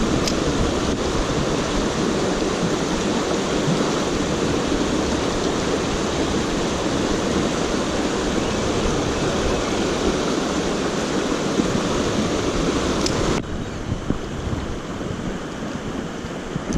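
Mountain stream water rushing over rocks, a steady loud hiss. About thirteen seconds in it cuts abruptly to a quieter, duller rush with a few faint clicks.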